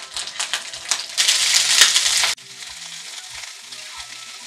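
Oil sizzling in a frying pan as whole tomatoes, dried guajillo chiles, onion and garlic fry, with light clicks as they are turned with tongs. The sizzle grows loud about a second in, then drops suddenly to a quieter fry a little past halfway.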